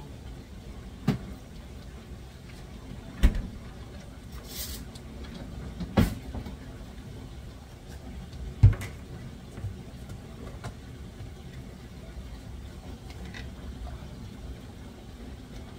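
Kitchen handling knocks: a refrigerator door and food containers being opened, closed and set down, giving a few sharp clunks a couple of seconds apart over a steady low hum.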